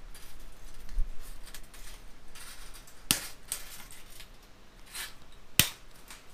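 Scissors snipping through chicken-wire mesh, each cut wire giving a sharp metallic snap. There is a handful of snips, the loudest about three seconds in and near the end.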